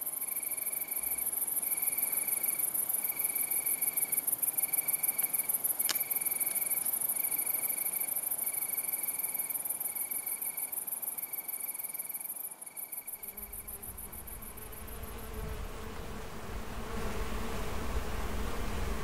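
Insects trilling: a high, fast-pulsing buzz with a repeated short note beneath it, fading out about two-thirds of the way through. Then the low buzzing of bees in flight comes in and grows louder near the end.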